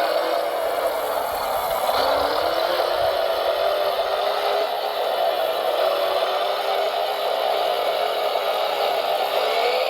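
Electric motors and gearboxes of radio-controlled construction models whining steadily, with the pitch rising a little about two seconds in as a motor speeds up.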